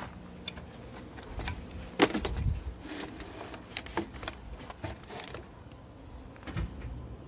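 Scattered clicks and knocks of small parts being handled, the loudest knock about two seconds in, over a faint hum in the first couple of seconds.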